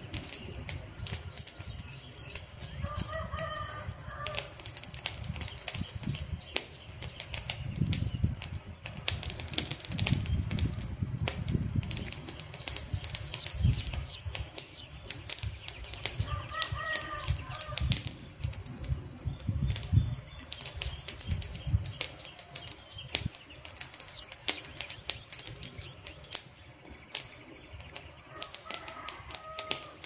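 A wood campfire crackling, with frequent sharp pops and snaps of burning logs. A low fluttering rush of the fire swells twice, around 8 and 16 seconds in, and fades off after about 22 seconds.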